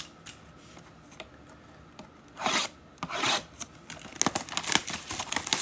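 Packaging of a trading-card mega box being torn open by hand: a few light clicks, two ripping strokes about halfway through, then rapid crinkling and rustling.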